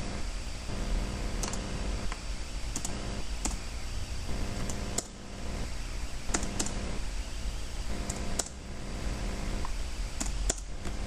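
Irregular sharp clicks of a computer being operated, a dozen or so spread unevenly, over a steady electrical hum and hiss from the recording.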